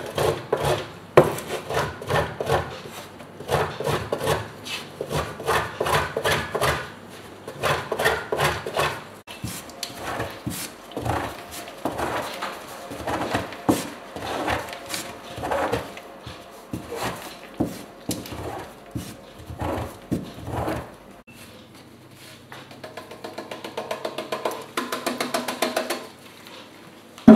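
Frozen butter being grated on a stainless-steel box grater into flour: repeated rasping strokes of butter on the metal teeth, about two a second, turning faster and lighter near the end.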